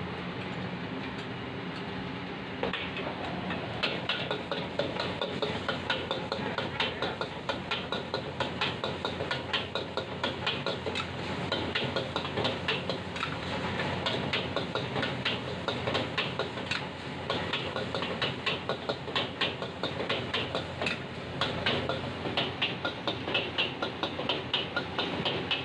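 Steel ladle and spatula clanking and scraping rapidly against a wok as rice is stir-fried, over a steady rushing background. The clanking starts about two and a half seconds in.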